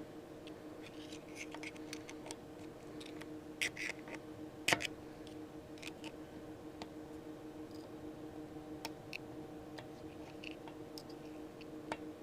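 Light metallic clicks and scrapes of a pointed hand tool working at a small keeper ring inside a truck's front wheel hub, the two sharpest clicks about four and five seconds in. A faint steady hum runs underneath.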